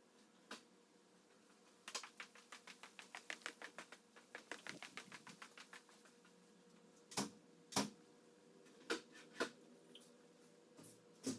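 Footsteps on a hard floor: a few heavy steps, the loudest two about half a second apart, after a few seconds of quick, light ticking that fades out.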